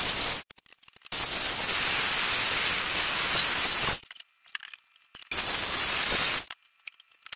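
Corded circular saw cutting through rotted plywood subfloor in three bursts that start and stop sharply as the trigger is pulled and released: a short one ending just after the start, a long one of about three seconds, and a shorter one near the end. The blade is set to cut just through the plywood without reaching the floor beam below.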